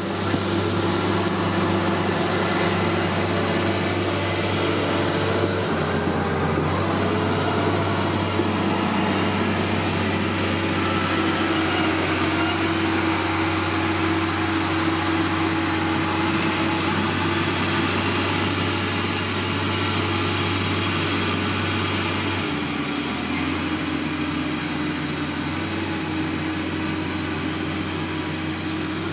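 A steady low mechanical hum, like an idling engine, with held tones that shift slightly in pitch twice.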